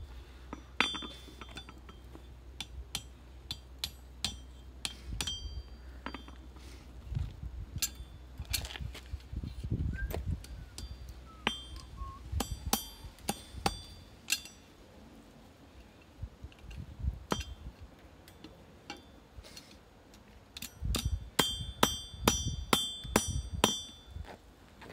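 Hand hammer striking hot steel on an anvil while forging an S-hook, in irregular runs of blows with the anvil ringing after each strike. There is a quick flurry of strikes near the end.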